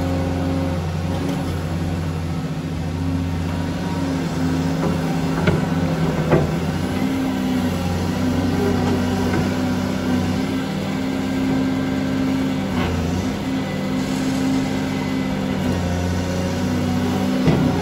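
Caterpillar 330D2 hydraulic excavator's diesel engine running steadily under working load while it digs and swings, a low steady drone. A few short knocks come through, around five and six seconds in and again near the end.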